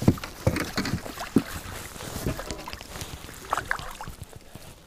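Rustling and scattered knocks as clothing and gear are handled in a small boat, close to a chest-mounted camera's microphone; the knocks come thickest in the first couple of seconds.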